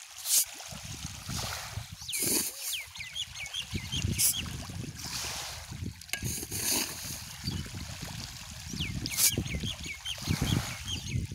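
Splashing and trickling water from a dense mass of fish thrashing in shallow, muddy pond water, with sharp splashes about half a second, four seconds and nine seconds in. Runs of short high chirps come about two seconds and seven seconds in.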